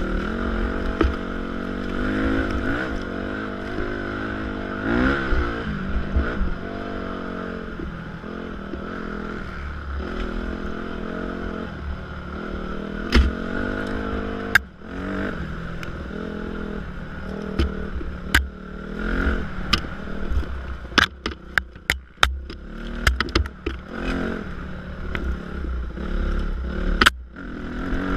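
Dirt bike engine revving up and down as it is ridden along a woodland single track, heard from on the bike. Sharp clicks and knocks come through often, many of them in the second half.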